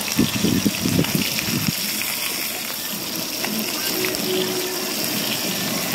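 Galunggong (round scad) frying in hot oil in a wok, a steady sizzle throughout, with a few brief low thumps in the first couple of seconds.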